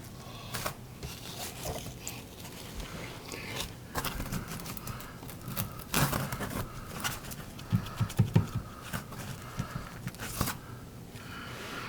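Irregular scraping and rustling with scattered light knocks, from wire being fished by hand through a wall cavity.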